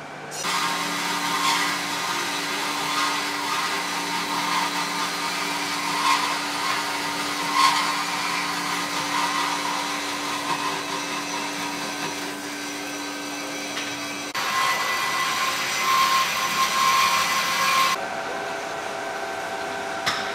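Bomar Workline 510.350 DG horizontal band saw cutting through steel stock: a steady rasping hiss over a motor hum, with a few louder scrapes. Near the end the sound changes abruptly twice to other machine running noise.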